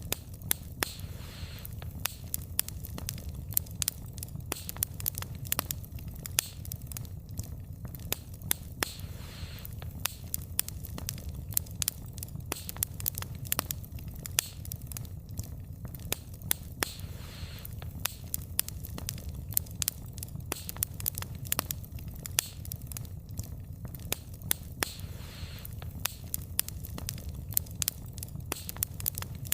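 Wood fire crackling, with frequent sharp pops and snaps from the burning logs over a steady low rumble of flame. A soft hiss swells up about every eight seconds.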